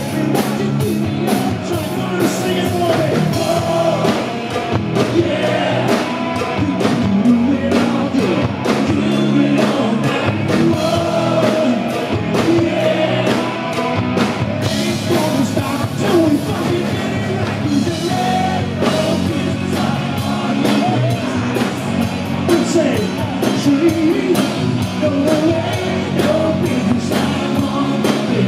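Hard rock band playing live: a male lead singer over electric guitars and a drum kit keeping a steady beat.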